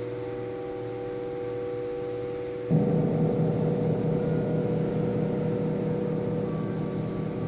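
Chapel temple chimes ringing with long sustained tones; about two and a half seconds in a fresh strike brings in a louder cluster of deeper tones that ring on.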